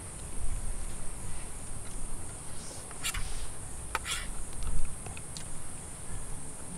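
Steady high-pitched insect chorus, with a metal spoon clinking sharply twice against a metal camping pot as instant noodles are stirred, about three and four seconds in.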